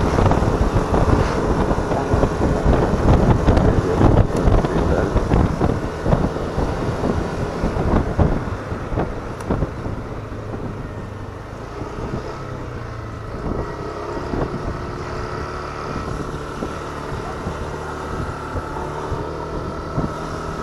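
Wind buffeting the microphone while a Yamaha XMAX 125 scooter is ridden, its 125cc single-cylinder engine running steadily underneath. About nine seconds in the wind eases and the engine's steady hum comes through more clearly.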